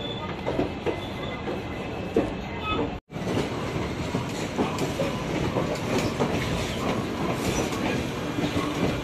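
Passenger train running, heard from an open door or window: a steady rumble with irregular clicks of the wheels over rail joints. There is a brief dropout about three seconds in.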